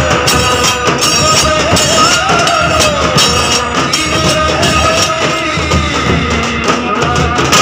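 Several large rope-laced dhol drums beaten together in a fast, dense, loud rhythm, with a wavering pitched tone sounding over the drumming at times.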